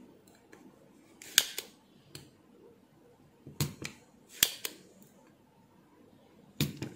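Spring-loaded manual desoldering pump (solder sucker) clicking and snapping as it is cocked and triggered over soldering-iron-heated joints to suck up the molten solder. There are half a dozen sharp snaps spread over the few seconds, the loudest about a second and a half in and again past the middle.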